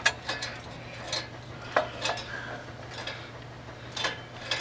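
Scattered light metallic clinks and taps, about six over a few seconds, from a hand and tool knocking against the metal pipes and fittings in a Ford 6.0L PowerStroke engine bay.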